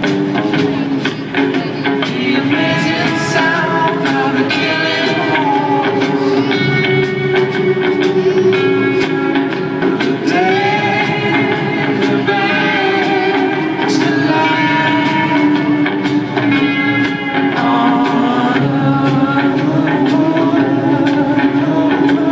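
Live rock band playing, with a voice singing long held notes over a steady low drone and a regular beat of light percussion.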